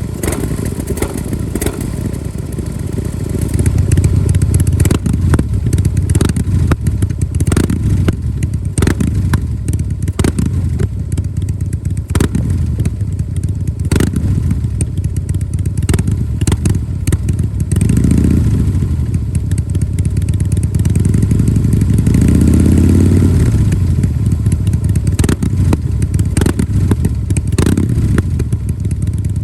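Harley-Davidson Breakout CVO's 110-cubic-inch V-twin idling with a lumpy, uneven beat of sharp exhaust pulses. It gets louder a few seconds in, and the throttle is blipped twice in the second half, revving up and dropping back to idle.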